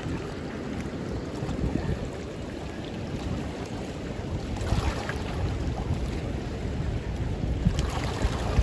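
Fast, churning spillway outflow water rushing steadily, with wind noise on the microphone.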